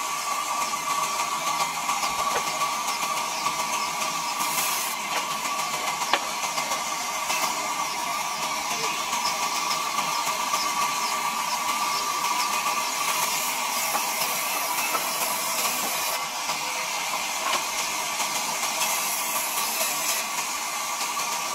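Large vertical band saw running and cutting through a hardwood log into planks: a steady tone over a continuous hiss, with the hiss brightening at moments as the blade works through the wood.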